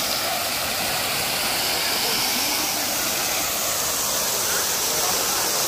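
Steady rushing hiss at an even level, with faint voices underneath.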